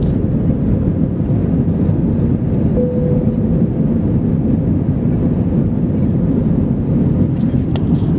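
Cabin noise of an Airbus A320 climbing just after take-off: a steady, low rush of the engines at climb power and the airflow over the fuselage, heard from a seat over the wing. A short faint tone about three seconds in and a small click near the end.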